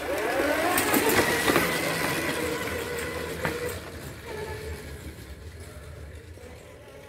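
Electric go-kart's 850 W 36 V DC motor and drive whining up in pitch as it pulls away, then running at a steady pitch with a few knocks, growing fainter as the kart moves off.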